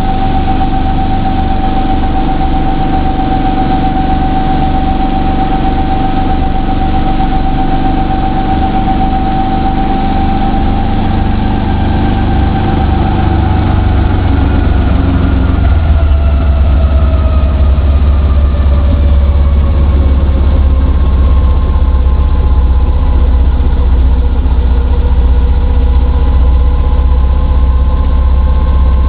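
Brantly helicopter's four-cylinder Lycoming piston engine and rotor drive running at idle on the ground after landing. A steady whine slides down in pitch from about halfway through, while the low throbbing grows louder.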